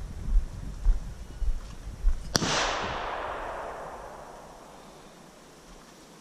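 One pistol shot: a sharp crack a little over two seconds in, followed by a long echo that fades away over the next few seconds. Low thumps on the microphone come before it.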